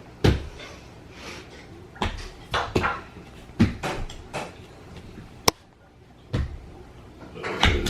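Irregular knocks and bumps, with one sharp click about five and a half seconds in.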